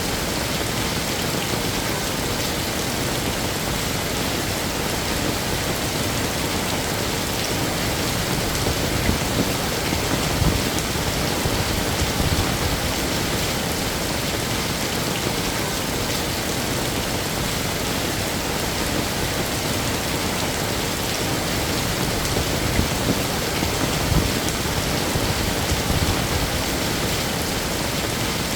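Heavy rain falling steadily, a dense even hiss of drops hitting surfaces with occasional slightly louder patters.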